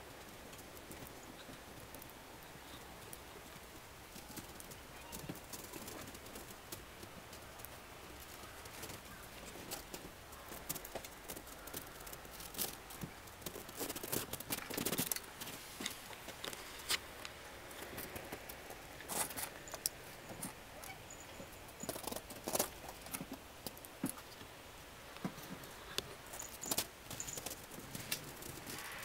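Light, irregular crunching and pattering of cats' paws walking on snow, growing busier about ten seconds in.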